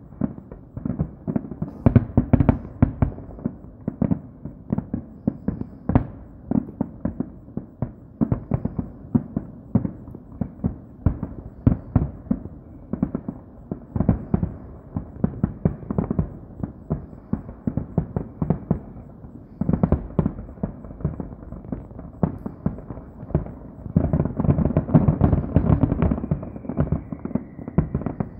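Fireworks grand finale: a continuous run of bangs and crackles, several a second, thickening into a denser barrage near the end, with a faint falling whistle over it.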